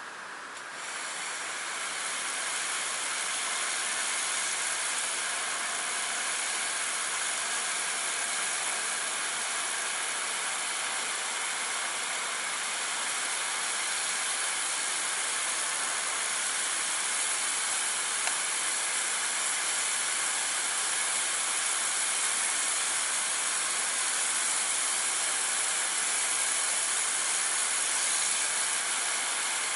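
Kärcher K2 Compact electric pressure washer spraying a water jet onto a concrete wall, a steady hiss that starts about a second in when the spray begins.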